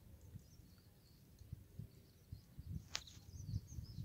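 Quiet bush ambience: faint high bird chirps, growing near the end, over low irregular rumbles on the microphone, with one sharp click about three seconds in.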